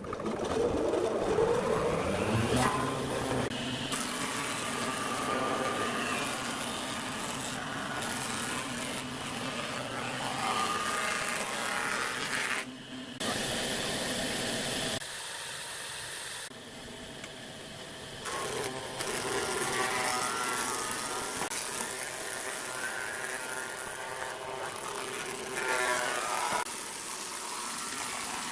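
Nisino wood planer switched on, its motor spinning up with a rising whine over the first few seconds, then running and planing pine boards. The sound changes abruptly several times as cut shots follow one another.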